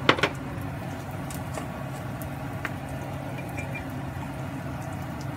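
Steady low mechanical hum of a kitchen appliance, with one sharp knock just after the start.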